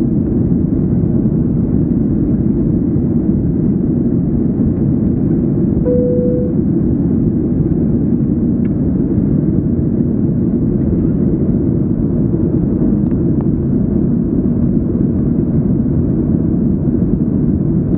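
Steady cabin roar inside a Boeing 737-800 in flight: its CFM56-7B engines and the airflow along the fuselage, heard from a window seat. A short single tone sounds about six seconds in.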